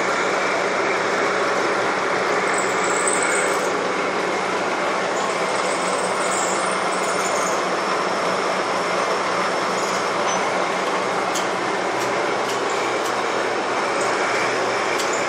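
Electric tool-post grinder running, its wheel grinding the surface of a red rubber roll turning in a lathe: a steady whirring, rushing machine noise with a constant low hum.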